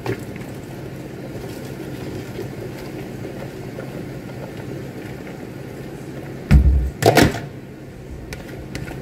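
Chopped cabbage rustling and sliding as it is tipped from a plastic colander into a pot of simmering vegetables, over a steady low hum. About six and a half seconds in come two loud knocks.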